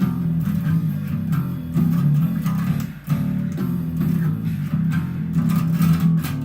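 Electric bass guitar playing a chorus riff: a run of held low notes with a short gap about three seconds in.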